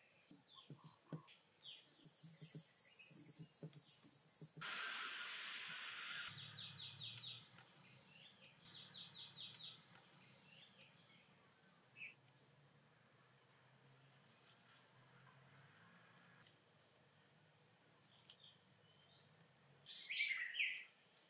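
Forest ambience: a steady high-pitched insect drone that jumps abruptly in level several times, with scattered bird chirps and a few faint knocks.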